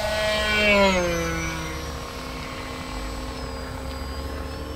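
Electric RC plane's Tower Pro 2408-21 brushless outrunner motor and propeller whining in flight. The whine is loudest about a second in and falls in pitch over the first second and a half, then holds steady.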